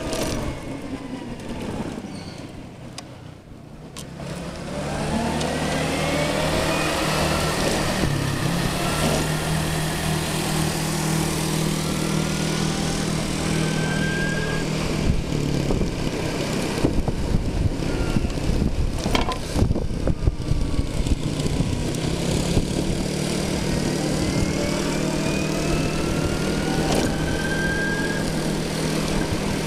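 China Motor e-moving electric scooter with a Jordan V200 power system riding along, its electric drive giving a whine that rises in pitch several times as it speeds up, over steady wind and road noise. It eases off and goes quieter about two to four seconds in, then picks up again.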